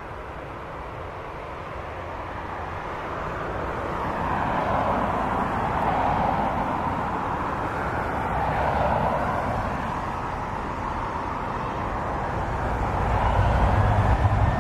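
Jet engines of a taxiing airliner, a Ryanair Boeing 737, a steady roar that swells in the middle. Near the end a thin rising whine and a louder, deeper rumble build up.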